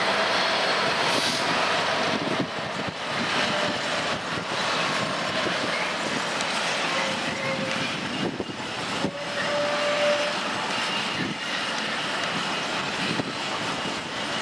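Three Class 66 diesel-electric locomotives coupled as a triple header, passing at low speed with their engines running and wheels rolling on the rails: a steady, dense train noise with a few brief squeals.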